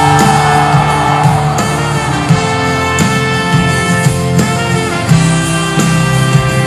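Background music with held chords that change every second or two.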